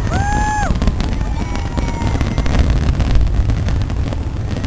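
Fireworks display booming and crackling in a continuous low rumble of overlapping bursts. A short high whistle sounds near the start.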